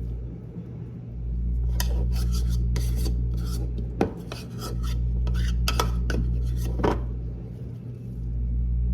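A spoon scraping and clicking against a bowl and plate while mashed deviled-egg yolk filling is spooned into halved egg whites: a scatter of short scrapes and taps, over a steady low hum.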